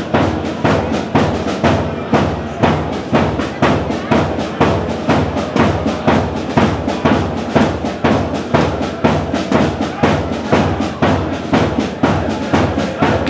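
Background music with a steady drum beat: bass and snare drums under a full band.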